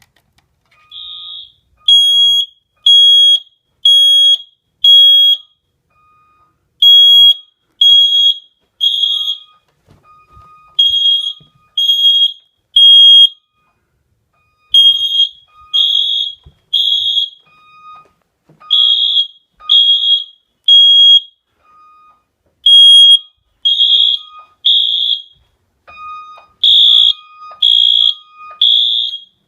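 Home fire alarm sounders, a Wheelock MT horn and System Sensor i3 smoke detectors, going off during a system test in the temporal-three evacuation pattern. They give three loud high-pitched beeps about a second apart, pause, then repeat, and a fainter lower beep sounds in the gaps.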